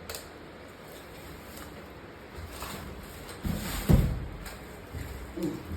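A few dull low thumps and knocks. The loudest comes about four seconds in, with two smaller ones near the end.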